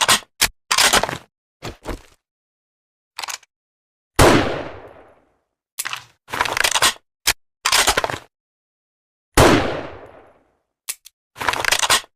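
Remington Model 700 BDL bolt-action rifle: two shots, about 4 s and 9.5 s in, each with a long fading tail. The bolt is worked between them, in short clacks and slides of opening, cycling and closing.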